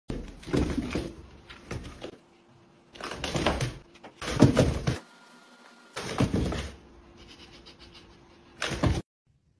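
Cardboard box being shoved across a tile floor: irregular bursts of scraping and scuffing, five or six of them, each about half a second long, with short pauses between.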